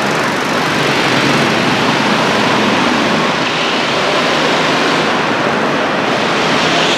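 Go-kart engines running on an indoor track, blending into a loud, steady din that echoes through the hall.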